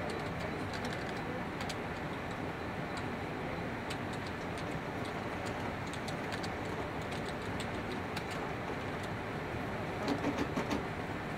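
Computer keyboard keys clicking irregularly as someone types on a Dell keyboard, over a steady background hiss. A few soft low pulses near the end.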